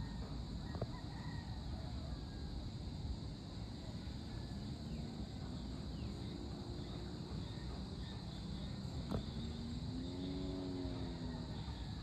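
Outdoor ambience under an approaching thunderstorm: a steady low rumble and hiss with a thin high hum above it. An animal calls twice, each call drawn out and rising then falling in pitch, about five seconds in and again near the end.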